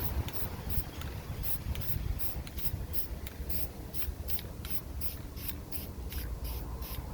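Rhythmic back-and-forth rubbing strokes on a panel, about three a second, over a low steady rumble.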